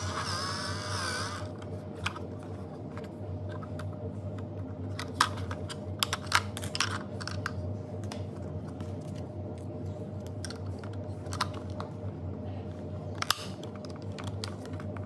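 Scattered clicks and taps of hard plastic being handled: a plastic coin bank turned over in the hands, its battery cover and a loose plastic part knocked about, with a coin, over a steady low hum. The sharpest clicks come in a cluster about five to seven seconds in and once more near the end.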